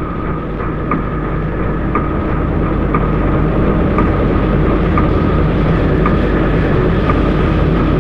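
Steady low mechanical rumble with a thin steady ringing tone above it and a short tick about once a second, slowly growing louder.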